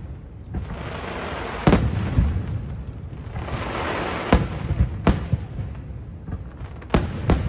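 Aerial fireworks shells bursting in the sky: five sharp bangs, the last two close together near the end, with a crackling, fizzing shower swelling between them.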